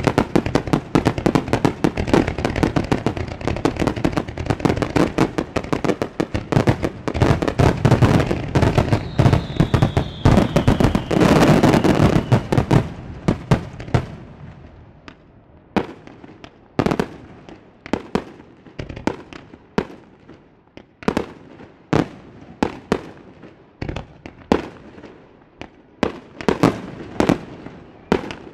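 Fireworks display heard at the launch site: a dense barrage of shell bursts and crackle for about the first half, with a falling whistle near the middle, then single bangs spaced about a second apart.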